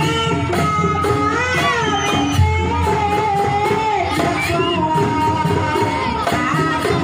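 Traditional Javanese folk music accompanying a kucingan dance, playing loudly: a steady beat of drums and sharp percussion with a wavering, gliding melody over it.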